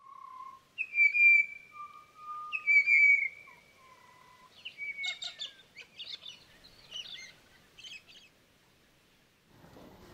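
Birds calling: a few clear, drawn-out whistled notes, the loudest in the first three seconds, then a run of quicker, busier chirps that stop a little after eight seconds.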